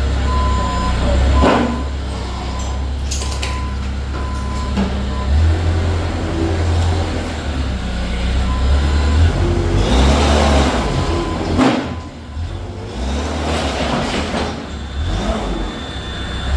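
Heavy diesel engine of a JCB-type demolition machine running, its low rumble rising and falling as it works. A few loud noisy bursts cut across it, the longest around ten seconds in.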